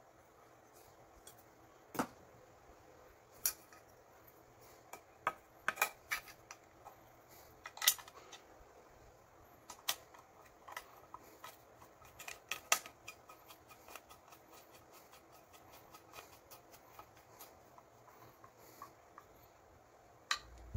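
Aluminium cookware being handled and a pan handle being fitted and screwed on with a screwdriver: irregular sharp clicks, taps and clinks of metal and handle parts knocking together. They come thick in the first half and thin out toward the end.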